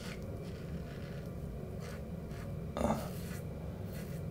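Double-edge safety razor scraping through lathered stubble on the cheek and jaw in a run of short strokes, about two a second, with one louder stroke about three seconds in.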